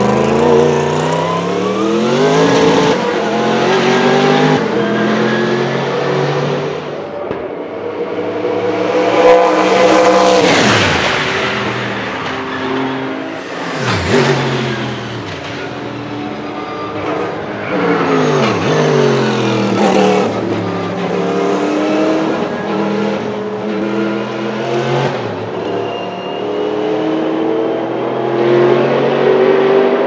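Sauber-Mercedes C11 Group C car's M119 5.0-litre twin-turbo V8 at racing speed, pulling up through the gears with repeated upshifts. Several times it sweeps past with a quick drop in pitch.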